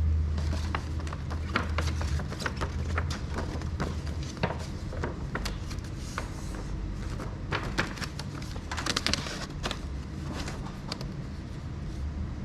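Scattered light clicks and taps of small plastic parts and wiring being handled, with a quick cluster of clicks about nine seconds in, over a low steady hum.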